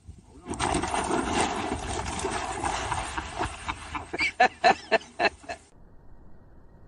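Animal sounds: a noisy, jumbled stretch that ends in a run of five or six sharp, loud strokes a little after four seconds in, then cuts off suddenly.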